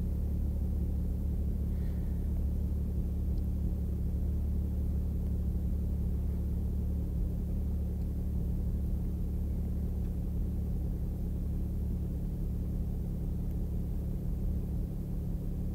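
A steady low hum made of a few unchanging low tones, from a machine running in the background, with no other events.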